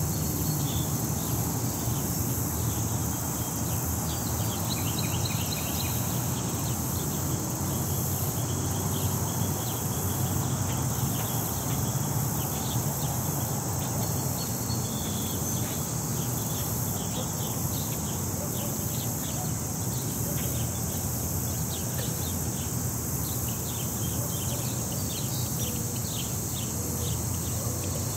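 City-park ambience: a steady high-pitched chorus of insects with many short bird chirps scattered over it, above a low, steady rumble of distant city traffic.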